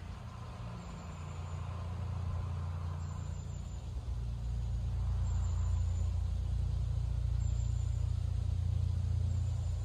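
Motor vehicle engine running: a steady low rumble that swells over the first few seconds, then holds.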